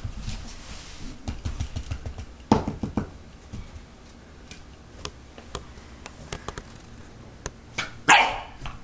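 Bulldog puppy barking in short, scattered barks, the strongest about two and a half seconds in and a louder, harsher one near the end, among light knocks and taps.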